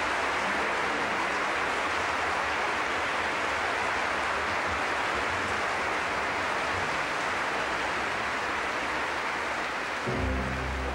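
Large audience applauding steadily. Near the end an orchestra starts playing under the clapping.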